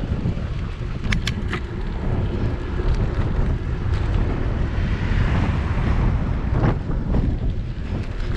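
Wind buffeting a bicycle-mounted GoPro's microphone while riding, a loud steady low rush. A few short sharp clicks come about a second in.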